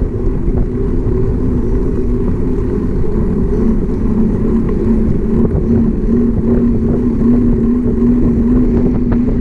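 Bicycle riding along an asphalt road: wind rumbling on the microphone, with a steady hum from the tyres on the pavement that rises slightly in pitch.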